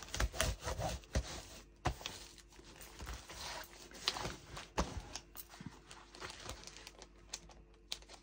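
Hands smoothing and patting the plastic cover film of a diamond-painting canvas: soft crinkling with irregular light taps and clicks, a couple of them sharper near two and five seconds in.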